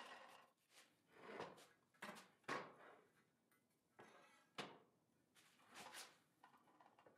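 Faint handling sounds: a steel plate being slid and shifted by hand on the saw bench, about half a dozen short scrapes and knocks.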